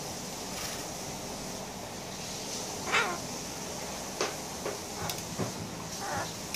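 Yellow-collared macaw giving one harsh squawk about three seconds in that falls in pitch, then a shorter call near the end. A few sharp clicks come in between.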